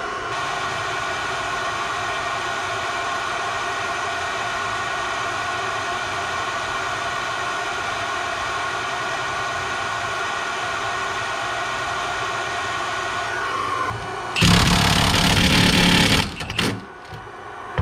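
Handheld flameless induction heater humming with a steady whine as it heats a seized cab-mount bolt, winding down about 13 seconds in. About a second later an impact wrench hammers for about two seconds and stops.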